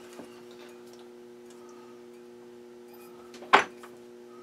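A metal lathe's cross slide and tool holder being hand-adjusted with the machine stopped: faint clicks near the start and one sharp metallic click about three and a half seconds in, over a steady electrical hum.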